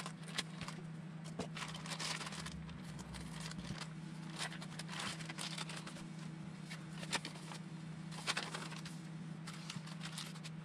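RC car drive shafts and their plastic parts packaging being handled: scattered crinkles, clicks and light scrapes over a steady low hum.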